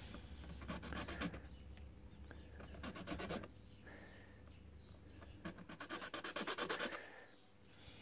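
Needle file rasping across a key blank in three short runs of quick strokes, cutting the pin spacing marks during impressioning.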